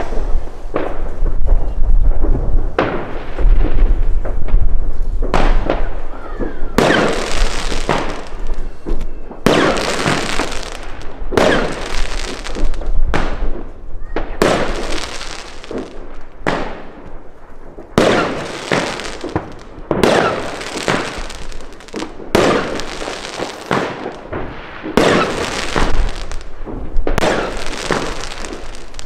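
Pangu 'Brasilian Box' firework battery firing its shots in a steady sequence, about one a second. Each shot is a sharp report with a noisy tail that dies away.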